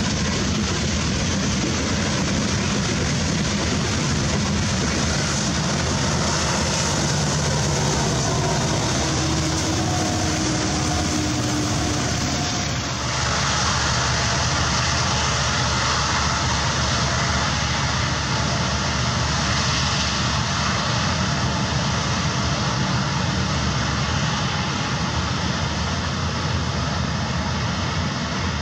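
Loaded coal train: the steady rumble of loaded hopper cars rolling past. About halfway through it changes abruptly to the steady drone of the approaching diesel locomotives, with a faint high whine.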